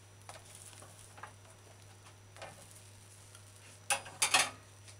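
Faint sizzling of a ham and cheese sandwich toasting on a hot flat grill under a metal spatula, with a few light ticks and a steady low hum. About four seconds in come a couple of sharp metal clacks as the spatula is lifted off the sandwich.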